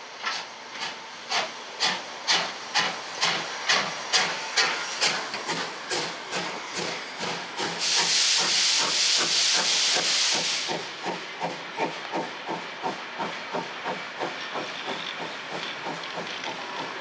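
Two-cylinder express steam locomotive (class 01, 01 118) pulling away with heavy exhaust beats, about two a second and quickening. About eight seconds in, a loud steady rush of steam lasts nearly three seconds. After that come quicker, fainter beats as the coaches roll past.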